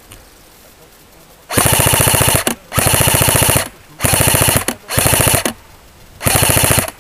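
Airsoft rifle firing on full auto: five short bursts of rapid, evenly spaced shots, the first about one and a half seconds in.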